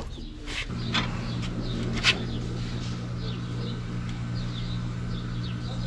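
A brazing torch lit after a few clicks, then burning with a steady, even hum as the copper refrigerant-line joints on a replacement air-conditioner compressor are brazed. Small birds chirp faintly and repeatedly.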